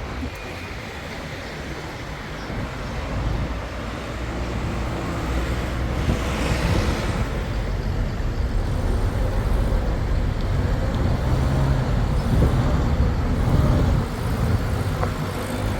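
Motor vehicle running: a steady engine and road rumble that grows gradually louder.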